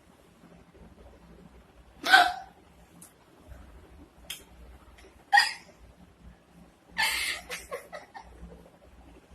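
A woman hiccupping: a loud, sharp hic about two seconds in, another around five and a half seconds, and a longer, broken one with several short catches near seven seconds.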